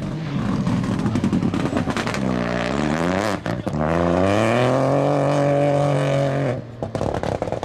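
Rally car engine braking for a corner, revs falling as it downshifts, with a sharp bang about three and a half seconds in. It then accelerates hard, revs climbing and holding high. Near the end it lifts off abruptly, followed by a spatter of crackles.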